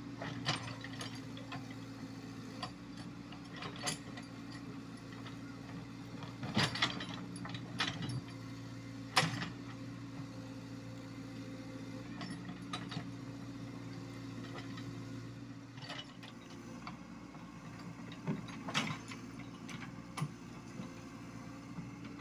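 Komatsu PC75UU mini excavator's diesel engine running steadily, with scattered clanks and knocks as the steel bucket works soil and stones against the ground and dozer blade, the sharpest about nine seconds in.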